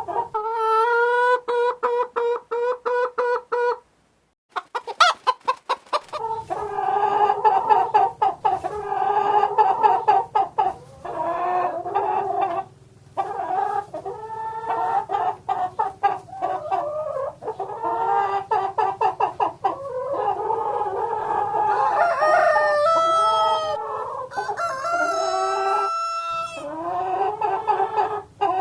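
Hens clucking in quick repeated runs of short calls, with longer drawn-out calls near the end. There is a brief gap about four seconds in.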